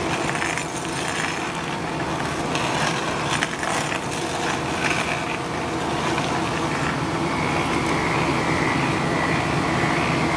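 A hydraulic screw-type stump drill boring down into a tree stump, with the carrier machine's engine and hydraulic drive running steadily. A few sharper cracks of wood come about three and a half and five seconds in.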